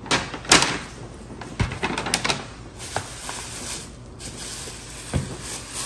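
Takeout food containers being handled and opened: a series of sharp clicks and knocks with rustling between them, the loudest about half a second in.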